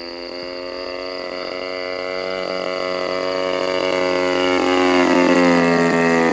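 RCGF 26cc single-cylinder two-stroke gas engine of an RC Pitts Special biplane running at steady throttle in flight. It grows louder as the plane approaches, and its pitch drops slightly as it passes near the end.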